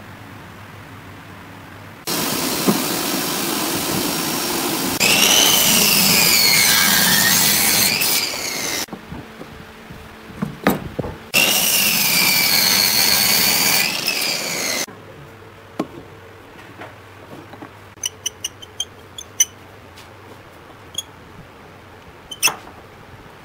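Power miter saw running and cutting through a wooden beam twice, its blade whine dipping and rising in pitch during each cut. After the saw stops, a few light clicks and a knock follow as the wood is handled.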